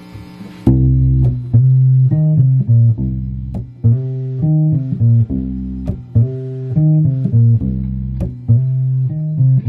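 Electric bass guitar played alone: a riff of plucked notes, long and short, starting just under a second in, the opening bars of the first take.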